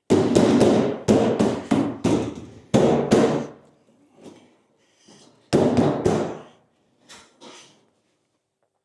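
Repeated heavy knocks on a Land Rover Series 3's aluminium rear body panel as it is struck to seat it into the tub: a run of blows over the first three and a half seconds, another short run about five and a half seconds in, and a couple of lighter taps near the end.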